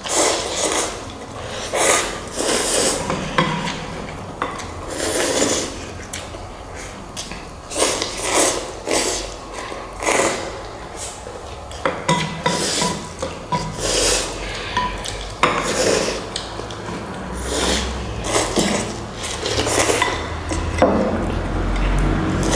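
Chopsticks and spoons clinking and scraping against bowls during fast eating of instant noodles, with short noisy bursts every second or two.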